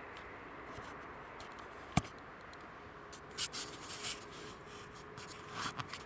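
Rustling and scraping close to the microphone from about three seconds in: handling noise as the camera is moved. Before that there is a steady faint hiss, and a single sharp click about two seconds in.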